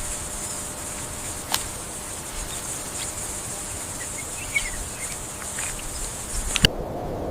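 Insects trilling in a steady, high-pitched chorus, with a few sharp clicks. Near the end it cuts off abruptly and a low rushing noise takes over.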